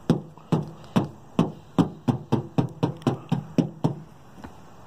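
Fingers tapping on a car's painted sheet-metal trunk lid: about fifteen light knocks, slow at first, then about five a second, stopping shortly before the end.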